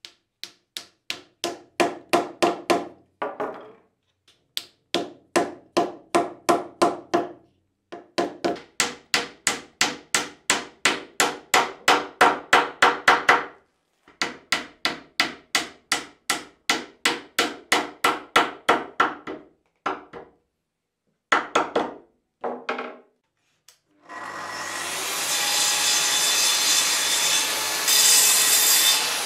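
A steel hammer drives wooden wedges into through-joints in ash boards. The blows come in quick runs of about five a second, each run speeding up, with short pauses between. About 24 seconds in, a Festool plunge track saw starts up and runs as it cuts the protruding wedges flush along its guide rail.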